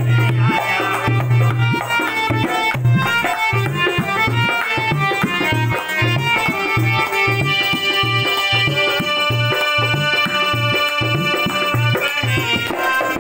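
Harmonium and dholak accompanying a Ram bhajan. The dholak's bass head beats a steady rhythm of about two strokes a second, the harmonium holds sustained chords, and a man sings over them.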